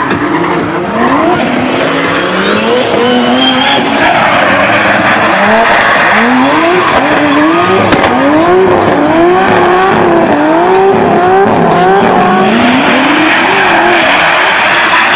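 Drift car engine revving up and down again and again as the throttle is worked through a drift, over tyre squeal and a steady rush of noise.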